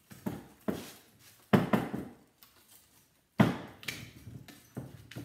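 Hand snips cutting through the metal of a scrap fan motor: a few sharp snips and metallic clanks with quiet gaps between, the loudest about one and a half and three and a half seconds in.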